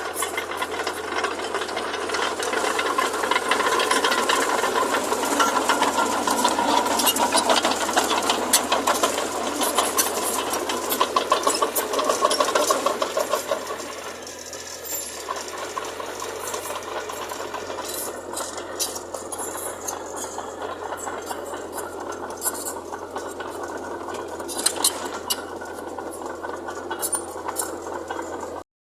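Diesel earthmoving machinery running, with a dense metallic clatter over the engine. It is louder for the first half and eases somewhat about halfway through.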